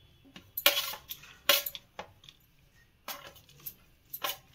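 Spoon clinking and scraping against a steel plate and kadhai as chopped dry fruits are pushed off the plate into the pan: several sharp clinks with short scrapes between them.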